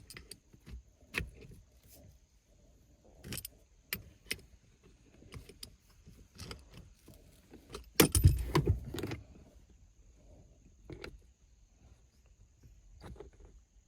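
Scattered clicks and light metallic rattles of a shift knob being twisted and tightened onto a manual shifter, with a louder burst of knocking and rattling about eight seconds in.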